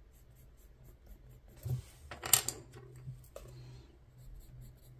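Coloured pencils being handled: a dull knock, then a sharp clack about two seconds in, followed by a couple of lighter clicks.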